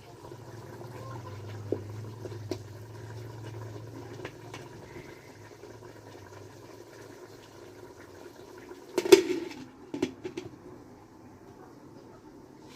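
A pot of chicken stew simmering on the stove, a steady low bubbling. About nine seconds in comes a loud clatter, followed a second later by a few lighter knocks.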